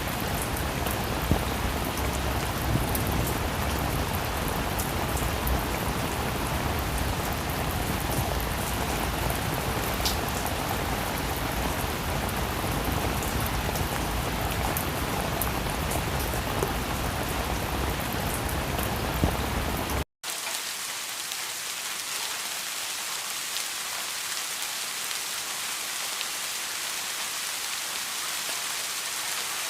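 Steady rain with scattered sharp drop ticks. About two-thirds of the way through it cuts out for a split second and comes back as thinner, lighter rain with much less low rumble.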